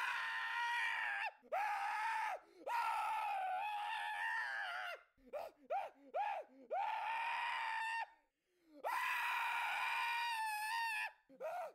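A person screaming: a series of long, high-pitched held wails, each rising at the start and dropping off at the end, with a few shorter yelps in the middle.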